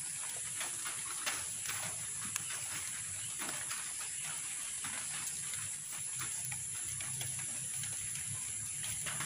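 Plastic strapping crinkling and scraping as it is threaded through bamboo slats and pulled tight while lashing a bamboo fish trap: many short, irregular crackles and rustles over a steady high-pitched hum.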